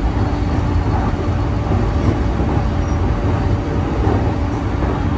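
Interior running noise of a JR East E531-series electric multiple unit at speed: a steady rumble of wheels on rail with an even, unchanging motor hum.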